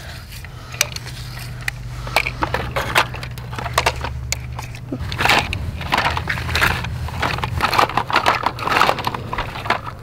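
Bruder JCB toy backhoe's plastic digger bucket scraping and digging in loose garden soil: repeated gritty crunching and scraping, busier in the second half. A low steady hum runs underneath and stops about three-quarters of the way through.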